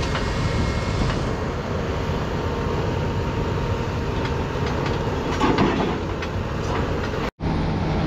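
Cat 336E excavator's diesel engine running steadily under load as its rock rake works through boulders, with a few clanks of rock on steel. The sound drops out for an instant near the end.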